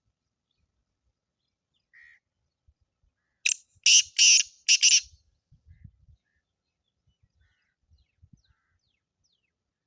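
Black francolin calling: a faint short note, then a loud phrase of four harsh, grating notes in about a second and a half.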